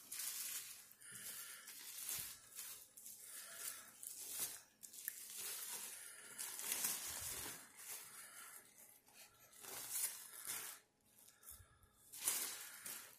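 Plastic bubble wrap crinkling and rustling in irregular bursts as a stone is unwrapped from it by hand.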